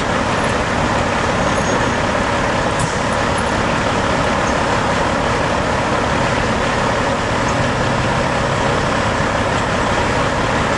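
Steady road traffic noise: a continuous rush of passing vehicles.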